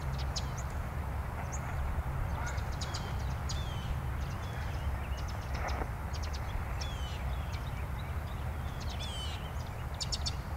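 Shortwave radio hiss and static from a Tecsun PL-660 as it is tuned between frequencies, over a steady low rumble. Birds chirp repeatedly throughout, with short high chirps and quick falling whistles.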